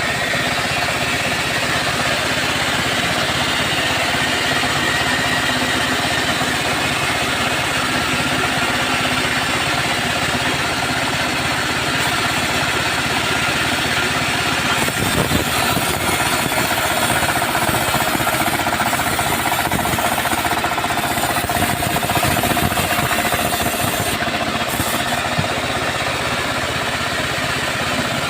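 Large engine-driven wood saw (gergaji selendang) running continuously while cutting teak, with a steady engine drone and a fast rattling chatter.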